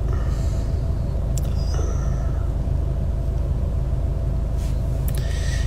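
Steady low rumble of a car heard from inside the cabin while riding, with a faint click about a second and a half in.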